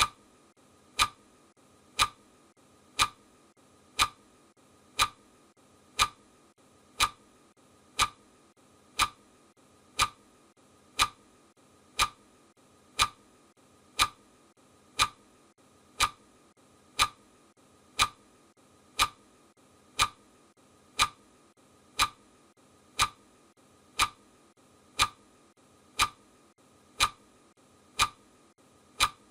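Clock ticking sound of a countdown timer: one sharp tick a second, every tick the same, keeping a steady beat.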